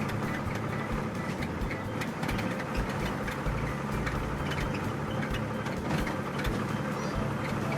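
Heavy vehicle engine running steadily, a low drone with scattered clicks and rattles.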